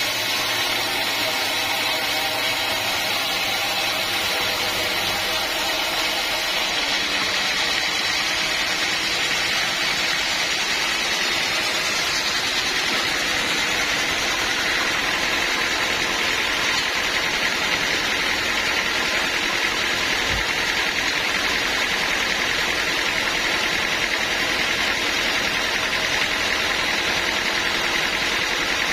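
Sawmill machinery running steadily, with an engine-like drone and no breaks; its tone shifts a few seconds in.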